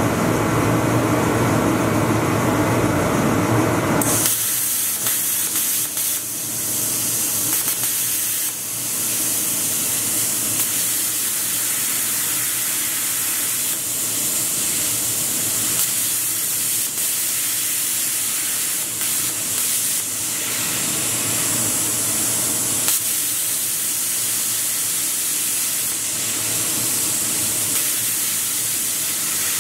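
Lotus plasma cutter torch cutting a steel handsaw blade, a steady high hiss of the arc and air stream. It takes over about four seconds in, after a fuller, louder opening sound.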